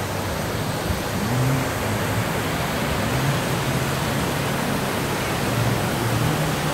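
Steady rushing of water from the artificial waterfalls cascading down the side of a theme-park volcano into the pool.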